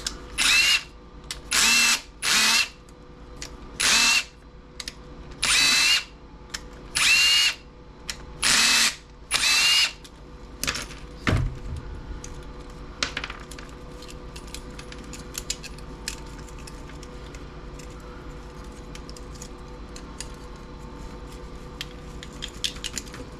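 Power drill spinning in about eight short bursts, its motor whine rising and falling as it runs fasteners out of a small CRT TV's chassis. After about ten seconds the drill stops and only light clicks and taps of parts being handled remain.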